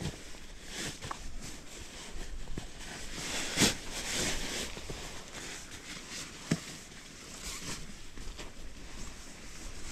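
Nylon sleeping bag rustling as it is pulled from its stuff sack, shaken out and spread over a foam sleeping mat, with a louder swish of fabric about three and a half seconds in and a sharp little knock a few seconds later.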